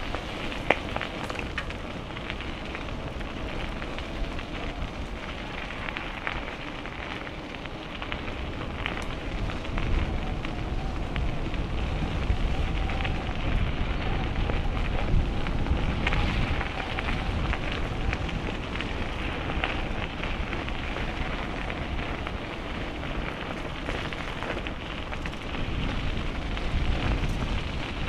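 Riding noise of a bicycle taken on a bike-mounted action camera: wind rumbling on the microphone, with a steady rush and a stream of small clicks and rattles from the tyres and bike.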